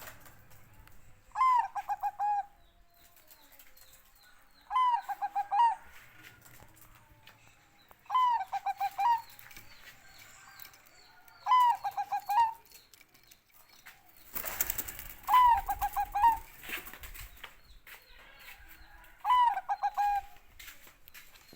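Bangkok-line zebra dove (perkutut) singing its cooing song six times, about every three and a half seconds: each phrase opens with a rising-and-falling note and runs into a quick string of short coos. A brief rush of noise comes just before the fifth phrase.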